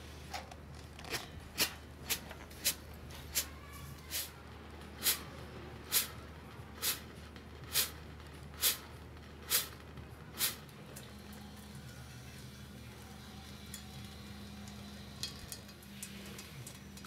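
Steam and hot water spitting in sharp spurts from the stainless outlet spout of a wood stove's water-heating line, about one to two spurts a second, as the water first flashes to steam in the hot stove. About ten seconds in the spurting stops, and a quieter, steadier sound of water running from the spout into a stainless basin follows.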